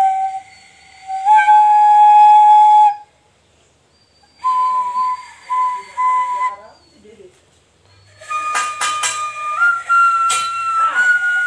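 Bamboo transverse flute played in three short phrases of held notes with breathy air noise, the last phrase stepping upward in pitch.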